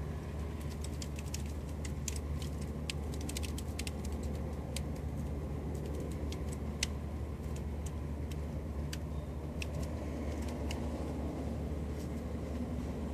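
Steady low hum with scattered sharp clicks, heard underwater in a swimming pool.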